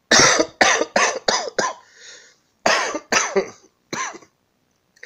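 A person with a heavy chest cold coughing hard: a rapid run of five coughs, then a pair, then a single last cough, from the fever and bad cough of a flu-like illness.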